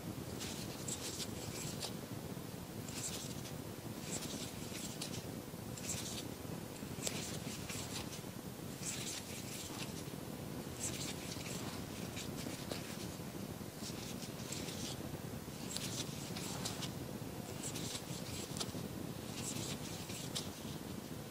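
Crochet hook working wool yarn close to a lapel microphone: short, soft scratchy rasps of the hook and yarn drawn through the stitches, roughly one a second, over a steady low room hiss.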